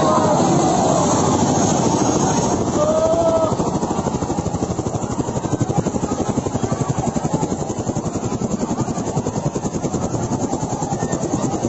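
Helicopter rotor chopping with a fast, even beat. Crowd shouts and whistles come over it in the first few seconds.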